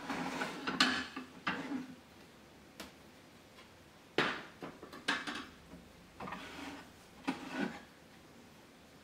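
Small stacked plates clinking and clattering against each other and the wooden shelf as they are handled, in about six short bursts with quiet pauses between.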